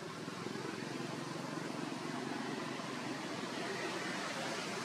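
Steady outdoor background noise: an even rushing hiss with no distinct events.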